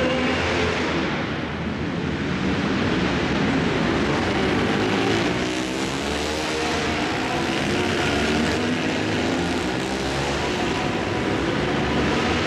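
Several flat-track racing motorcycle engines running hard as a pack laps the dirt oval. Their pitch rises and falls as the riders go on and off the throttle through the corners.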